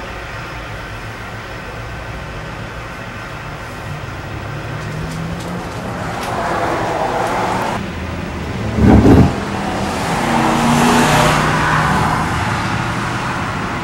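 Truck engines running, the sound swelling through the second half, with a brief loud blast of low noise about nine seconds in.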